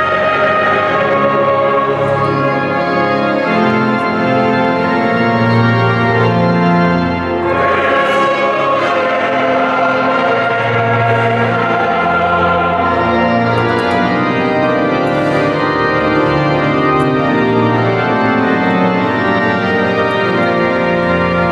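Church organ playing sustained chords over a slowly moving bass line.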